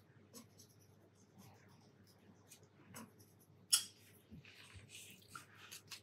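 Faint strokes of a paintbrush on cold-pressed cotton watercolour paper, with small scattered taps and clicks and one sharper click about two-thirds of the way through.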